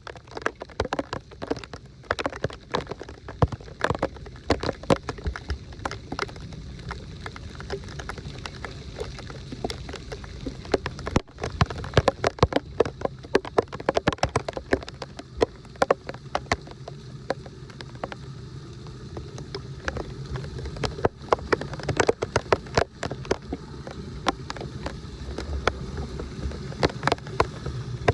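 Heavy rain falling and splashing into water: a dense, irregular patter of sharp drops and splashes over a low, steady rumble of moving water.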